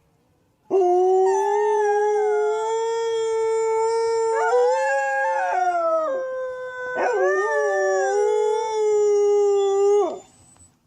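Dogs howling: a long, steady howl begins about a second in and runs almost to the end, with a second howl joining and breaking in pitch in the middle and again about seven seconds in.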